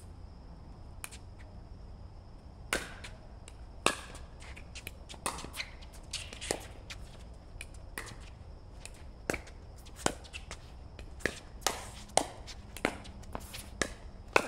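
Pickleball rally: paddle strikes and bounces of the hard plastic ball, a string of sharp pops at an irregular pace of about one a second, starting a few seconds in.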